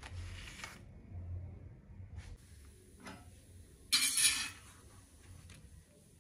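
Short scraping and rustling noises of a metal spatula and flatbread being handled on a cast iron pan. There is one brief burst at the start, a faint one about three seconds in, and the loudest, about half a second long, around four seconds in.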